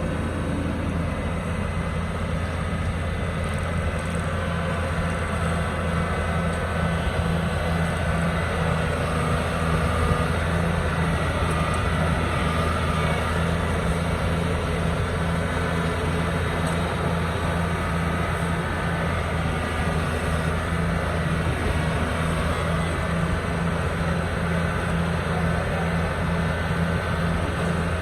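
Engine of heavy road-works machinery running steadily with a deep drone.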